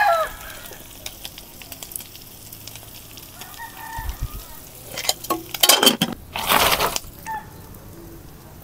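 A rooster crowing, the crow breaking off just after the start, with a fainter call around the middle. Then about two seconds of loud scraping and rustling handling noise near the end.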